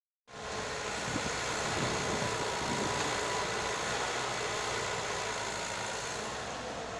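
Heavy construction machinery running steadily, a diesel engine with a faint steady whine over it; the sound cuts in just after the start.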